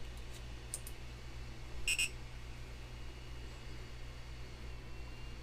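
A few faint clicks, then one short, high electronic beep from the Trinus 3D printer about two seconds in, as the SD card is swapped back in. A low, steady hum runs underneath.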